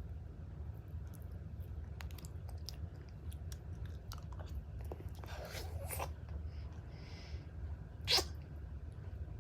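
Small wet mouth clicks and smacks from licking and sucking on a Ring Pop, over a steady low hum, with one short sharp breathy burst about eight seconds in.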